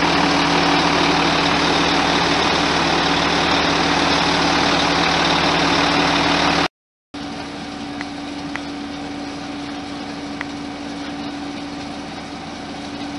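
Scania P400 fire engine's diesel engine idling with a steady hum. The sound drops out briefly about seven seconds in and resumes a little quieter, with a few faint clicks.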